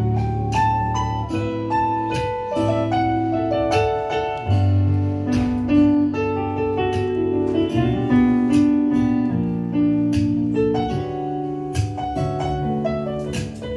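Live instrumental jazz on a Yamaha MO8 keyboard in a piano voice, chords and a melody line played throughout with frequent new notes, and no singing.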